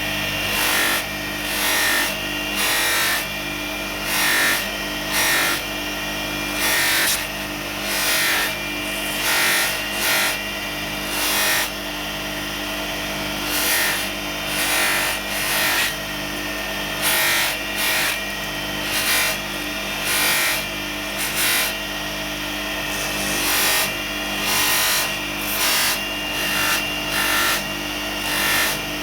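Bench grinder running with a polishing mop, its motor humming steadily, while a metal part is pressed against the spinning mop in short strokes about once a second, each stroke a brief rubbing hiss.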